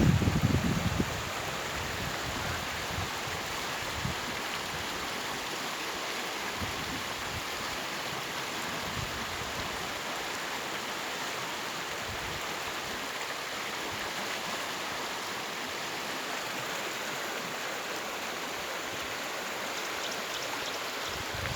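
River water running steadily, an even rushing hiss of a flowing stream, with a few low rumbles on the microphone in the first second.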